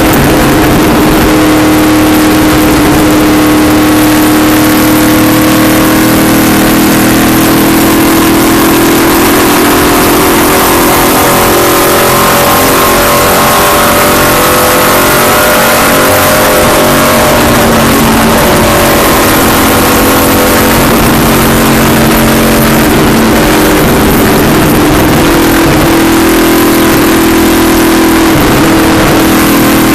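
Race car engine running hard, heard from inside the car over loud rushing wind and road noise. Its pitch sags through the middle as it comes off the throttle and climbs again near the end as it accelerates.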